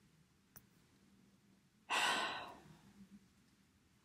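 A woman's audible sigh, one breath out about two seconds in that fades away in under a second.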